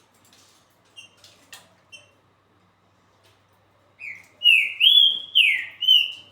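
Green-winged saltator (trinca-ferro) singing: a few soft short chirps, then about four seconds in a loud phrase of four slurred whistles that rise and fall.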